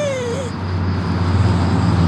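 A white dog's whine, falling in pitch, trails off about half a second in. Then a steady low hum comes up and holds.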